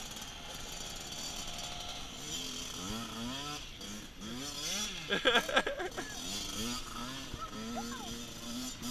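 Kawasaki KX65 two-stroke single-cylinder dirt bike engine revving, its pitch rising and falling in repeated surges as it is ridden. A few sharp knocks come about halfway through.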